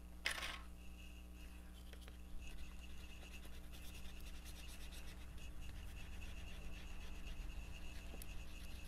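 Fingertips rubbing a rub-on transfer down onto a paper tag through its carrier sheet: a fast, fine scratchy rubbing that sets in about two and a half seconds in and keeps going. A short sharp noise comes a moment in.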